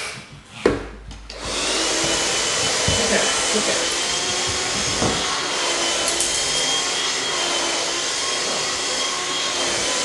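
Handheld vacuum cleaner starting up about a second in, then running steadily with a high motor whine as its nozzle is drawn over a pug's fur.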